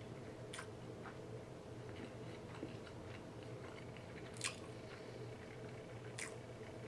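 Close-up mukbang chewing: wet mouth smacks and clicks, with a few sharper louder smacks, the loudest about halfway through.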